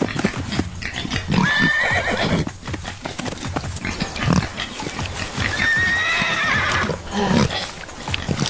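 An animal calling twice, each call a high, drawn-out cry about a second long, with irregular thumps and knocks between.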